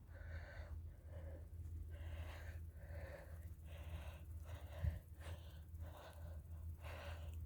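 Rapid, rhythmic panting breaths close to the microphone, about two a second, over a low steady rumble, with one short bump about two-thirds of the way through.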